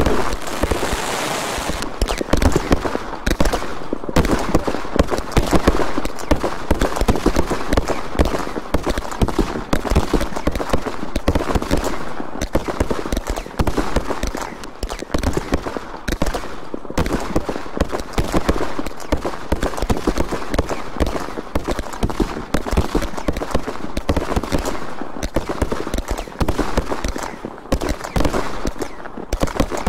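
A fireworks display fired from the ground: a rapid, unbroken string of launch thumps and bursting bangs and pops, shot after shot without a pause.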